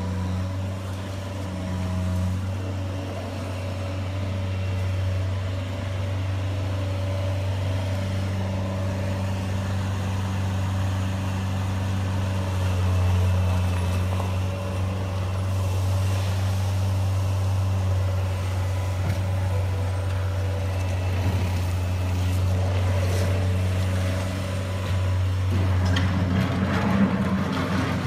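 Radio-controlled model construction vehicle running with a steady low hum, getting busier and clattering a little near the end.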